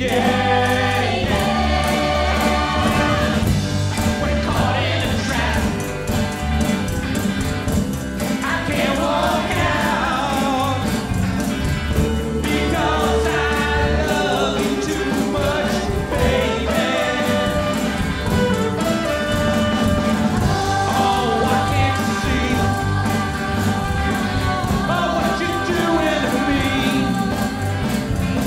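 Live band music: several voices, male and female, singing together over acoustic guitar, electric guitar, bass and drums.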